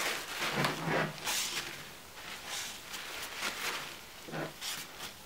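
A cloth rubbing over a plastic headlight lens, polishing it with fine abrasive compound, in a run of short swishing strokes about a second apart.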